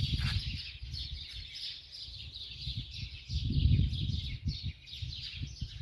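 Small birds chirping, with many quick high notes overlapping throughout, over a low rumble that swells for a moment past the middle.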